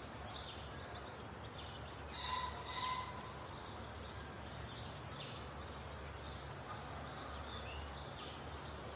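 Faint birds chirping repeatedly over low, steady background noise, with a slightly louder call about two to three seconds in.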